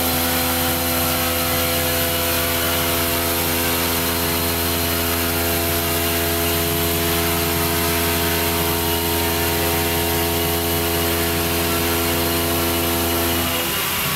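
Helios Zeus CNC stone-milling center's spindle running steadily as its cutter mills a solid stone block under water-coolant jets: a steady machine hum made of several tones, with a hiss over it. The tones change near the end.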